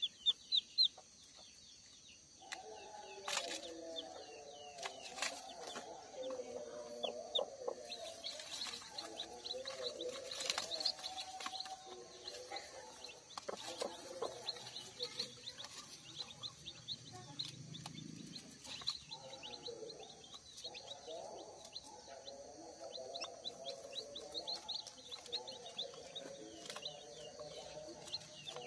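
Newly hatched kampung chicks peeping in quick, high chirps, with their brooding hen clucking low and on and off underneath, pausing for a few seconds past the middle. A few sharp clicks or taps in the first half.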